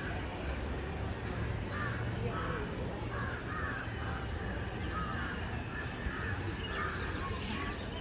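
Crows cawing over and over in short calls, starting about two seconds in, over a steady low rumble.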